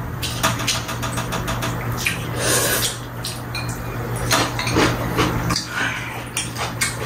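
Metal chopsticks clicking against bowls as ramen noodles are picked up and slurped: a string of light clicks with a few longer slurps.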